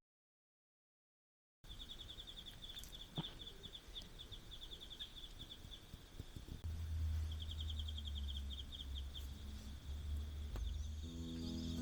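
Insects chirping outdoors in rapid, rhythmic trills of high pulses, after a second or so of dead silence. About halfway in a steady low hum joins, and music begins near the end.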